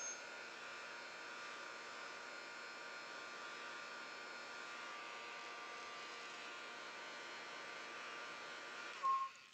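Handheld craft dryer running steadily, a faint fan hiss with a thin whine, blowing over tissue paper to dry the brush-pen ink. It shuts off near the end.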